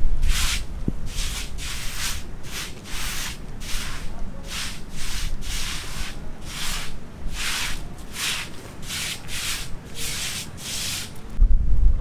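A steel trowel scraping round a bucket as cement mortar is stirred by hand, a gritty rasp about twice a second. Near the end it gives way to a loud low rumble of wind on the microphone.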